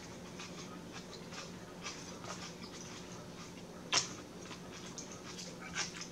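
Close-miked chewing and lip-smacking of salad, many small wet mouth clicks, with one sharper click about four seconds in. A low steady hum runs underneath.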